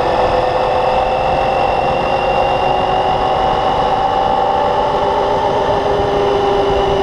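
Motorcycle engine running at a steady speed while riding, its note sagging slightly over a few seconds, with wind and road rumble on the microphone.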